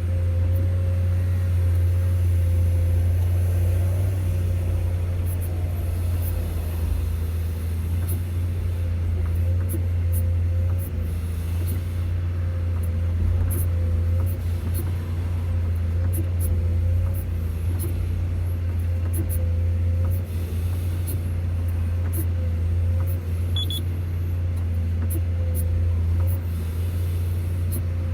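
Excavator's diesel engine running steadily at a constant speed: a deep, unbroken hum with a steady whine above it and scattered light ticks.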